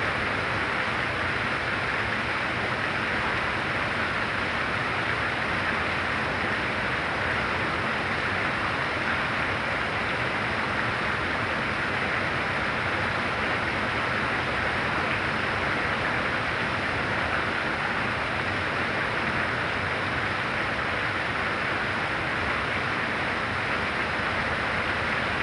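Heavy rain falling steadily, a dense, even rush of noise that neither swells nor lets up.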